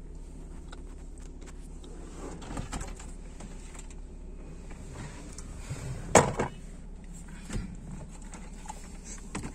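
Small clicks, knocks and plastic rattles from a car stereo head unit and its wiring being handled in the dashboard opening, with one louder knock about six seconds in. A steady low hum runs underneath.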